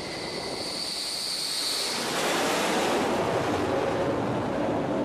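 F-14 Tomcat jet noise: a high whine at first, then a loud rushing roar that builds about two seconds in and holds.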